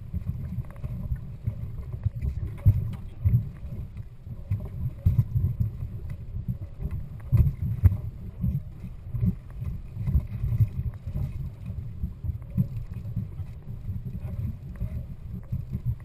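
Wind buffeting the microphone on an offshore boat: a low, gusting rumble that swells and dips.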